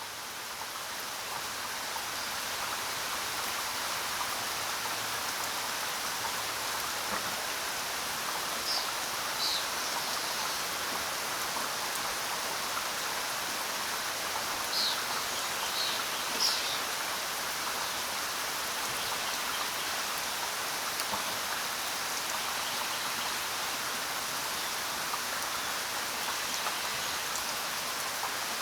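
Steady rain falling, a dense even hiss that swells up over the first few seconds and then holds level. A few short, high chirps sound faintly through it near the middle.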